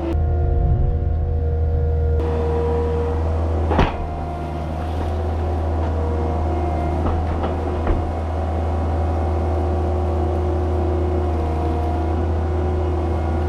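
Skid steer engine running steadily, a low drone with a steady whine over it, with two sharp knocks, one about four seconds in and one about eight seconds in.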